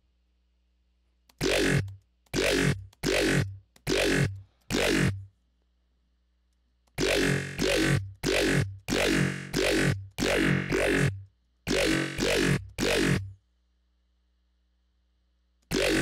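Aggressive dubstep bass one-shot played from a synth patch in Xfer Serum, sounded as short repeated hits. A handful come about a second and a half in, then after a short pause a longer run of about a dozen.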